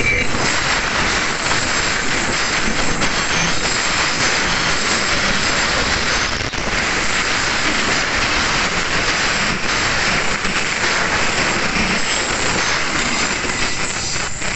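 KA Wijaya Kusuma passenger train's carriages passing close by, a loud, steady rolling of wheels on rail that drops away at the end as the last coach goes past.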